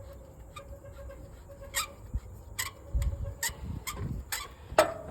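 Light metallic clicks of a 3/4-inch wrench working a loosened fuel-line nut off an electronic unit pump: about six sharp ticks, spaced a little under a second apart, starting about two seconds in.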